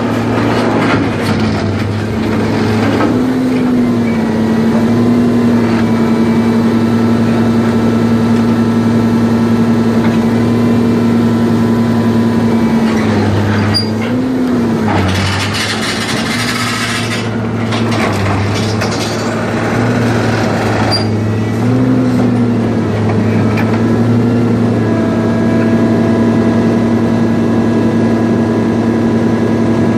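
Scrap shear baler's hydraulic drive running steadily under work, its pitch sagging briefly a few times as load comes on. About halfway through, a loud noisy burst lasts about two seconds.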